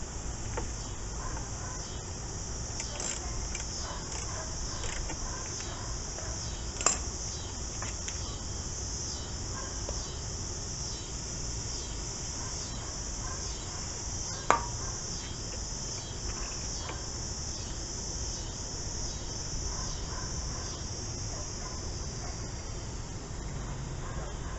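Steady insect chirping, short high chirps repeating evenly throughout, over a low background hum. Two sharp knocks stand out, about 7 seconds in and again about 14 seconds in.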